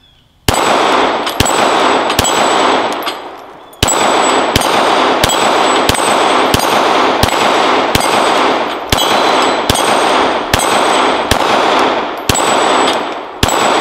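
Glock 19 9mm pistol firing 124-grain rounds in a rapid string, each shot followed by the ringing clang of steel dueling-tree paddles being hit. There are three quick shots, a short pause, then a steady run of shots about two every three seconds.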